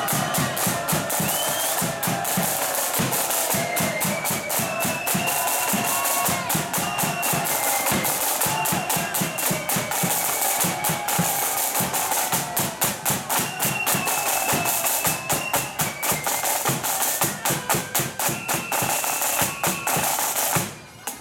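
Marching flute band playing: massed snare drums beating and rolling with a bass drum under a high flute tune. The band breaks off suddenly near the end.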